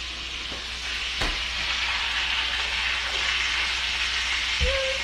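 Duck breasts sizzling in their rendered fat in a cast-iron skillet, a steady frying hiss that grows fuller about a second in, with a sharp click then. A low thump comes near the end.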